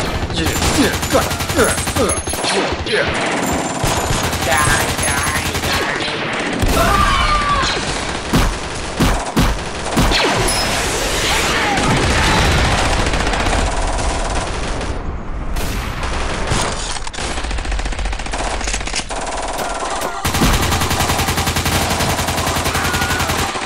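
Battle sound effects: dense, continuous gunfire and blaster fire, many shots overlapping with no let-up.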